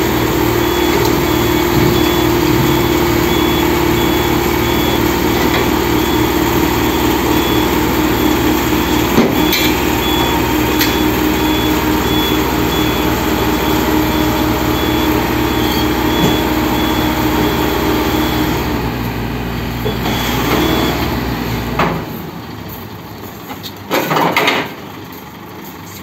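Komatsu PC38UU mini excavator's diesel engine running with a steady hydraulic drone as the machine tracks up onto a truck bed, with a high repeated beep. The engine stops a few seconds before the end, followed by a short clatter.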